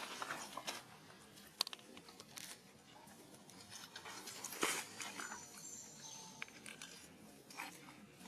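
Scattered sharp clicks and crunching, crackly rustles, the loudest about halfway through, with a faint high squeak shortly after.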